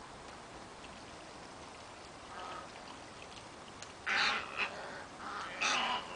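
Egrets giving harsh squawking calls: a faint one about two and a half seconds in, then a loud cluster of squawks about four seconds in and another near the end.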